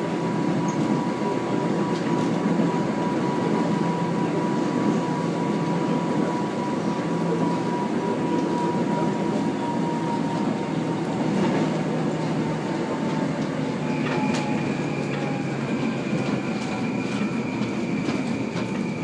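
Seoul Metro Line 1 resistor-controlled electric train (1000 series), heard from inside the carriage while running on the track: a steady rumble with a thin tone that slowly falls and fades. About two-thirds of the way in, a high steady squeal and scattered clicks set in as the train comes alongside the station platform.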